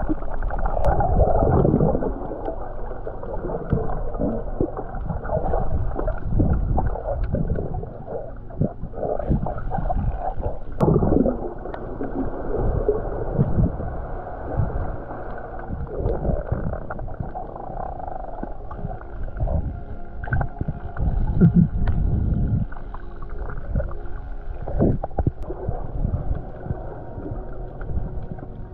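Muffled underwater water noise from a diver swimming: irregular gurgling surges and low thumps, with nothing high-pitched.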